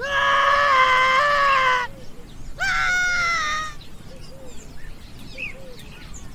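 Caracals, a mother and her kitten, screaming: one long shrill call lasting nearly two seconds, a shorter one about two and a half seconds in, then a few faint short chirps.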